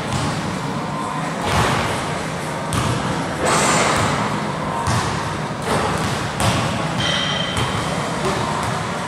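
A basketball bouncing and thudding on a gym court, a knock every second or so, with a brief sneaker squeak about seven seconds in.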